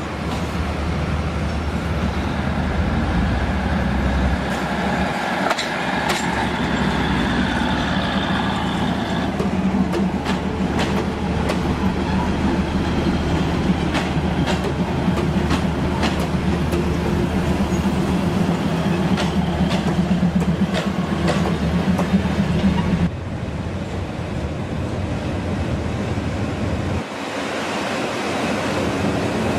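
Diesel railcar train running slowly along a station track, its engine droning steadily while the wheels click over the rail joints. About 23 seconds in the sound cuts abruptly, and again a few seconds later, ending on a diesel locomotive moving past.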